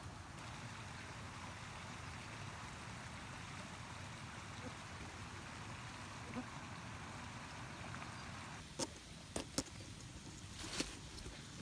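Steady outdoor background noise, then a few sharp clicks and a brief scraping burst near the end.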